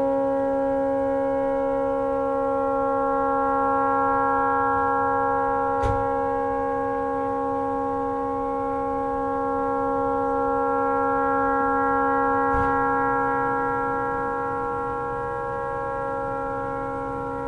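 A tugboat horn stuck on, sounding one unbroken, steady blast of several tones at once; the horn has malfunctioned and cannot be shut off. Two faint knocks come through it, about six seconds in and near the two-thirds mark.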